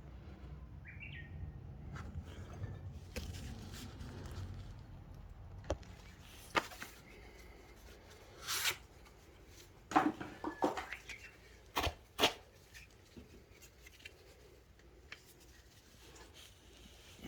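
Hand-tool work sounds: a low rumble for the first few seconds, then scattered sharp clicks and knocks of tools and parts being handled, the loudest about ten and twelve seconds in.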